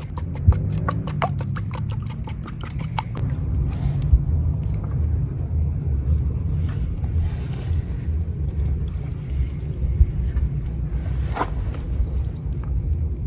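A steady low rumble of wind buffeting the microphone outdoors. A quick run of sharp clicks sounds in the first three seconds, and a single click comes near the end.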